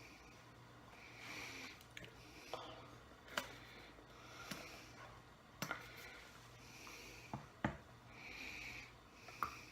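Slow, soft breathing through the nose close to the microphone, each breath a short hiss every few seconds, with four or five sharp clicks scattered through it.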